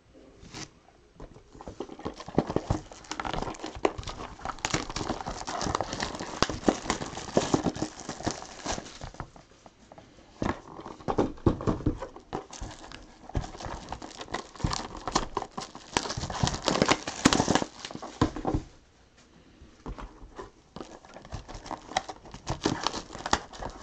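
Plastic shrink wrap crinkling and tearing as it is stripped off sealed trading-card boxes, mixed with light knocks of the cardboard boxes being shifted and restacked. The crackling comes in several runs, with a short lull about nineteen seconds in.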